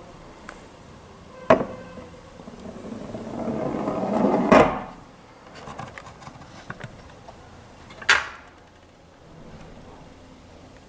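Wooden double cone set down on sheet-metal rails with a sharp knock, then rolling along them with a rumble that grows for about two seconds into a loud clack as it reaches the end of the track. A few faint ticks follow, and another sharp knock comes about eight seconds in.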